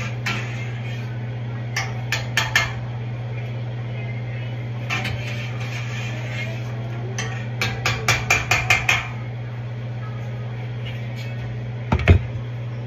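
A metal spoon knocking against a large stainless-steel stockpot as the pot is stirred: a few quick clanks about two seconds in, a faster run of about eight a little past the middle, and a heavier knock near the end. A steady low hum runs underneath.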